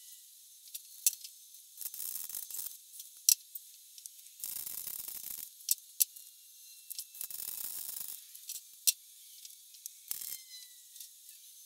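MIG welder tack-welding a steel patch into a rusted speaker tray: short crackling, sizzling bursts of about a second each, every two to three seconds, with single sharp clicks between them.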